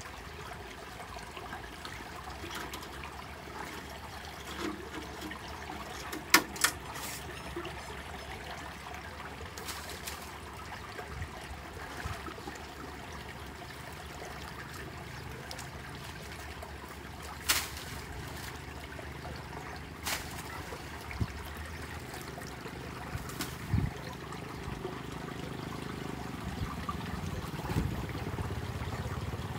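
Muddy water trickling and flowing steadily into a partly blocked culvert, with a few sharp knocks and splashes as branches are handled in the water, the loudest about six seconds in and near eighteen seconds.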